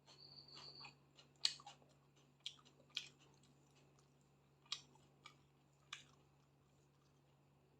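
Close-up eating sounds of chicken and rice being chewed: soft chewing with about half a dozen short sharp clicks and smacks, spaced a second or so apart.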